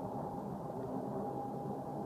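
A steady, unbroken low roaring drone with a faint held tone riding on top, of the kind reported as an unexplained 'strange roaring noise'.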